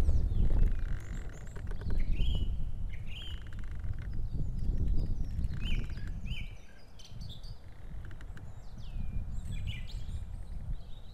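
Osprey on its nest giving short, high whistled calls in small bursts, typical of alarm calling at an intruding osprey. Wind rumbles on the microphone, with faint chirps of small birds.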